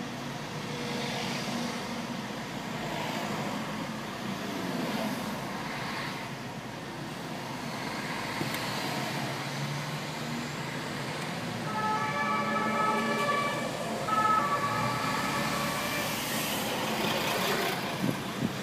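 Steady traffic hum heard from inside a car in a jam; about twelve seconds in, a police car's siren sounds for about four seconds.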